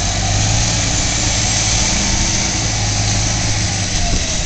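Heavy diesel truck engines running steadily, with a deep hum that drops away about four seconds in.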